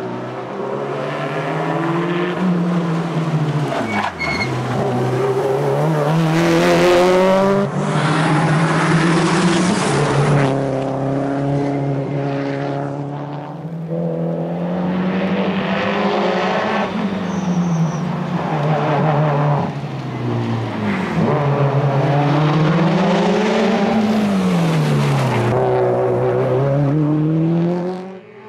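Tarmac rally car's engine at full work through a run of tight bends, its pitch climbing again and again through the gears and falling sharply on braking and downshifts, with the revs swooping down and back up several times.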